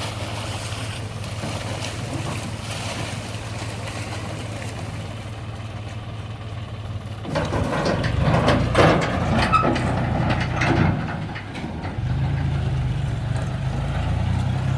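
Heavy diesel machinery engine (backhoe loader or tractor) running steadily, getting louder with clattering and knocks about seven seconds in, then settling into steady running at a slightly higher pitch near the end.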